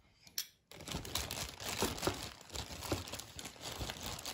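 Plastic crinkling and rustling: a couple of light clicks, then a steady crackle that starts a little under a second in.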